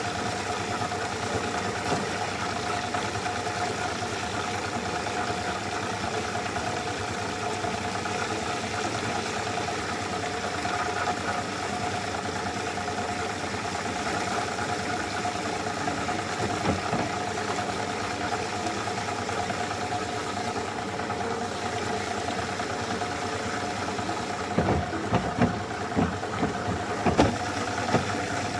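Small tabletop Hollander beater running: its electric motor and spinning beater roll make a steady hum while churning water and chopped cotton rag in the tub. A few sharp knocks come near the end.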